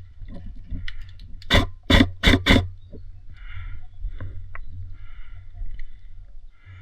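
Airsoft gun firing four quick shots about a second and a half in, roughly four a second, over a steady low rumble.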